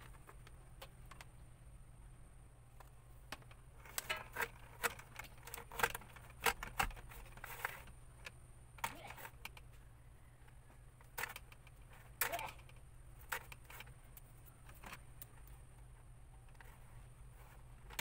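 Insulated electrical wires being fed by hand through flexible corrugated plastic conduit: irregular scrapes, rustles and clicks, bunched about four to eight seconds in and again about eleven to fifteen seconds in, over a low steady hum.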